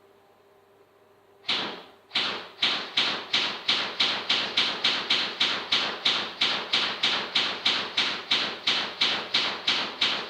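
Airsoft gun firing a steady rapid string of shots, about four a second, starting about one and a half seconds in and keeping up an even rhythm.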